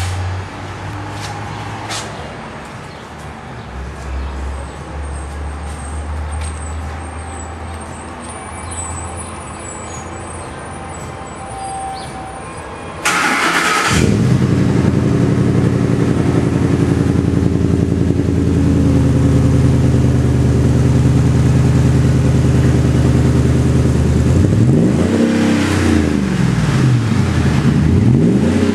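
Ford F150 5.4-litre V8 running through a custom Magnaflow dual exhaust. For the first half there is a steady, quieter low engine hum. About halfway a sudden burst marks the engine firing, and it settles into a loud steady idle. Twice near the end the throttle is blipped, the pitch rising and falling.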